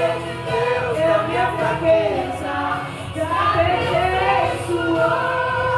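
A woman sings a Portuguese-language gospel song with instrumental accompaniment under her voice.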